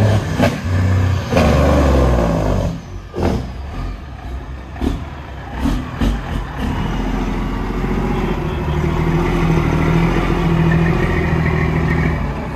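Heavy diesel truck engine revving loudly for the first two seconds, then easing off. It settles into a steady drone that builds through the second half, with a few short sharp sounds in the quieter middle stretch.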